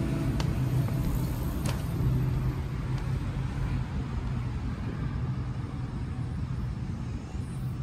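Steady rumble of passing car traffic, with a couple of light clicks in the first two seconds.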